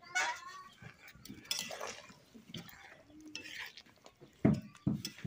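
Metal ladle stirring chicken curry in a wok, scraping and clinking against the pan, with two louder thumps near the end.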